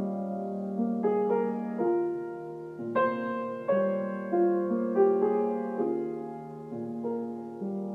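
Solo piano improvisation played slowly and softly. New notes and chords are struck about once a second over held low notes, and it grows a little softer near the end.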